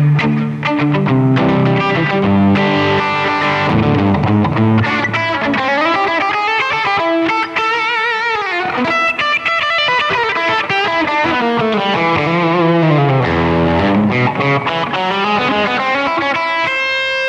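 Les Paul Custom solid-body electric guitar played through an amplifier. It starts with low riffing and chords, then moves to single-note lead lines with string bends and vibrato.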